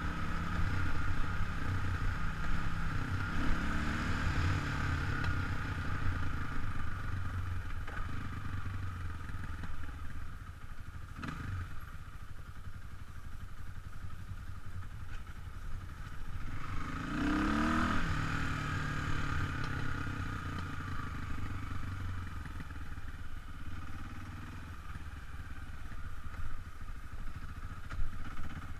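Kawasaki KLX300 dirt bike's single-cylinder four-stroke engine running on a trail ride, heard from the rider's helmet, with a sharp knock about eleven seconds in and a brief rise in revs a little past the middle.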